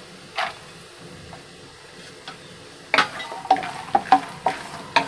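Peanuts frying in oil in a metal pan with a faint sizzle. About three seconds in, a wooden spatula starts stirring them, knocking and scraping the nuts against the pan several times a second.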